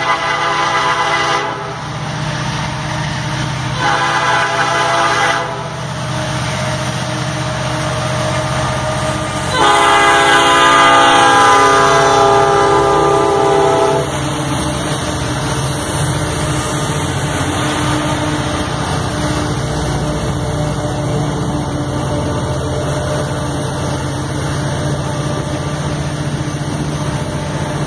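EMD SD70 diesel locomotives sounding their horn in three blasts, the last long and loudest, its pitch dropping as the lead unit passes close by. Then the 16-cylinder diesels work steadily, pulling the ore train upgrade, and its hopper cars roll past.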